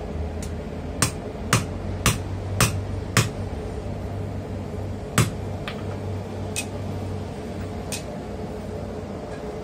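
Hammer blows on steel on a stump anvil set in a concrete block base: a run of five even strikes at about two a second, then one harder blow and a few lighter taps. The concrete base makes the anvil sound dead.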